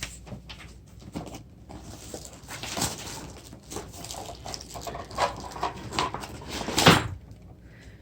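Packaging being handled as items are taken out of a tool kit box: irregular rustling and light knocks, with one louder rustle about seven seconds in.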